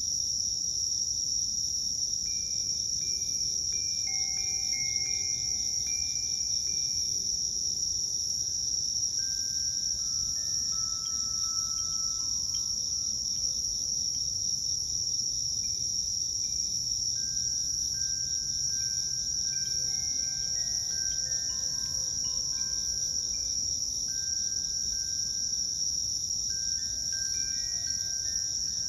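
A steady, high insect chorus, like crickets trilling, with soft, scattered single notes of a Koshi Terra chime ringing over it now and then.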